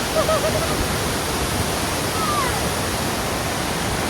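Steady, full rush of a large waterfall, the monsoon-swollen Iruppu Falls. A few faint short calls rise over it near the start and again about two seconds in.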